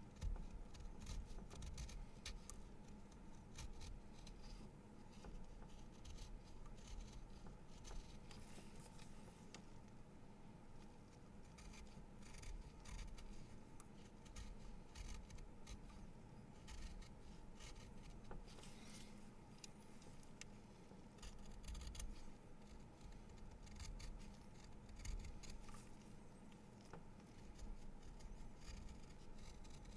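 A pencil being sharpened: faint, irregular scraping and shaving strokes of a blade against the wood and lead.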